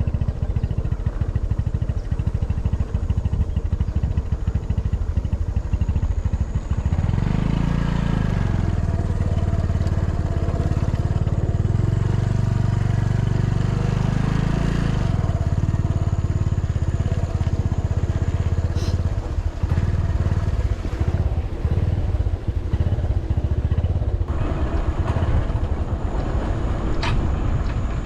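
Vehicle engine running on the move, with steady road and wind noise. The engine pitch rises about a quarter of the way in, holds, then drops back around the middle.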